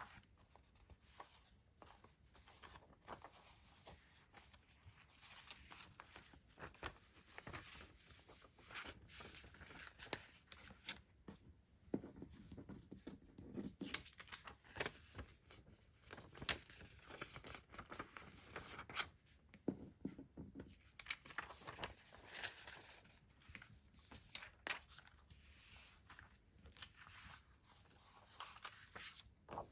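Stationery and its packaging being handled and opened close to the microphone: soft rustling, crinkling and tearing of paper and plastic wrapping, with small clicks and taps scattered throughout.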